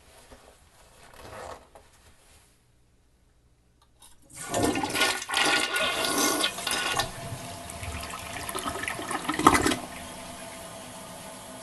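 Toilet flushing: a sudden loud rush of water about four seconds in, surging again near the end, then settling into a steady quieter hiss of running water.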